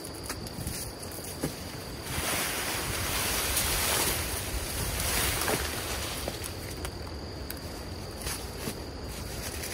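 Rustling and swishing of freshly cut weeds and leafy vines as they are pulled up and gathered in armfuls by hand, swelling louder in the middle, with some wind on the microphone.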